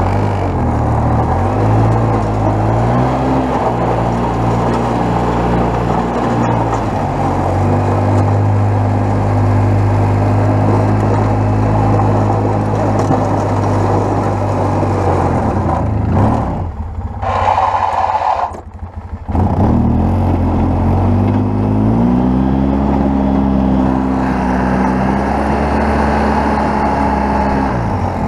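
2002 Polaris Sportsman 700 ATV engine running while pushing snow with its plow, its pitch rising and falling as the throttle is worked. About two-thirds of the way through, the engine sound drops away for about three seconds, then comes back.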